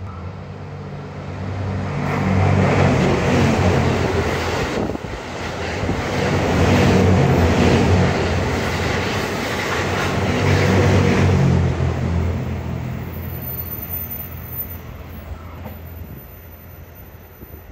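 JR West 87 series Twilight Express Mizukaze, a diesel-electric hybrid train, passing through a station without stopping. A low engine drone and rail noise build over the first two seconds and stay loud for about ten seconds as the cars go by, then fade away over the last few seconds.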